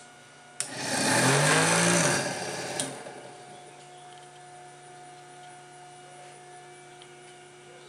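Small electric drive motor and the alternator it turns starting up suddenly and whirring loudly for about two seconds. A click comes near three seconds in, after which a quieter steady hum remains.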